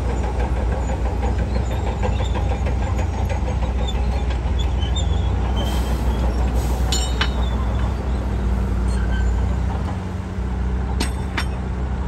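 Heavy diesel dump-truck engines running steadily with a deep, low rumble. A few sharp knocks come about seven and eleven seconds in.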